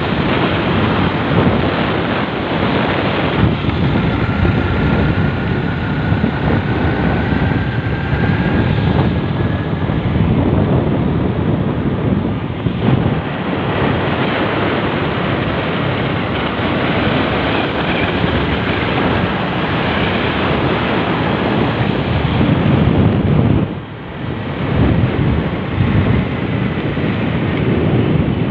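Wind rushing over the microphone of a motor scooter riding at speed, mixed with the steady hum of its engine and tyres on asphalt. A faint whine rises a few seconds in, and the noise dips briefly about four seconds before the end.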